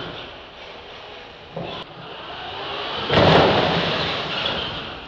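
R/C monster trucks driving, their motors whining, with a sudden loud burst of noise about three seconds in as one truck tumbles over.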